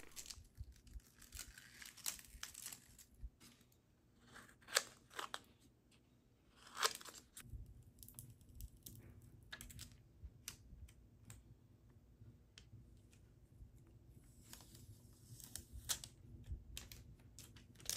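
Faint handling of a thin mylar plastic sheet: a scatter of small clicks and crackles, with two louder ones about five and seven seconds in.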